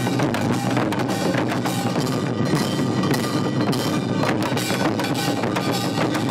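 Ensemble of Korean barrel drums (buk) beaten with sticks in a fast, dense, unbroken rhythm.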